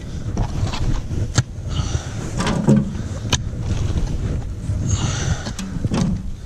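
Irregular knocks and scrapes of hand tools at work on earth and wood, about ten sharp strikes unevenly spaced, over a steady rumble of wind on the microphone.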